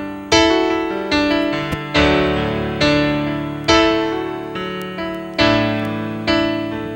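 Piano playing slow chords, a new chord struck a little under once a second and each left to ring and fade.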